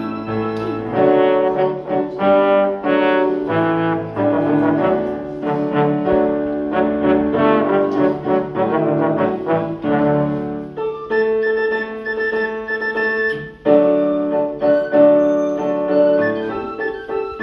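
Trombone and a small end-blown pipe playing a tune live, in turns and together: a run of short notes, then longer held notes about eleven seconds in.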